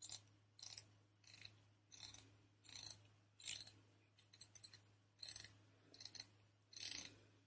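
Omega Seamaster Planet Ocean's 120-click unidirectional steel dive bezel being turned by hand, ratcheting in short runs of faint, crisp clicks about every two-thirds of a second.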